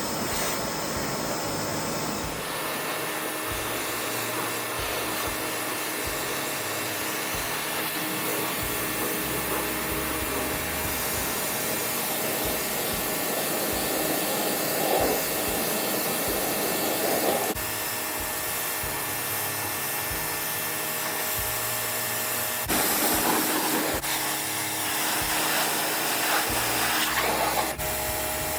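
Pressure washer running steadily: a motor whine under the hiss of the water jet spraying stonework, swelling louder for a couple of moments near the end.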